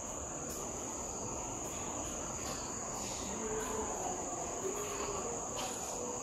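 Faint scratchy strokes of a marker pen writing on a whiteboard, over a steady high-pitched whine.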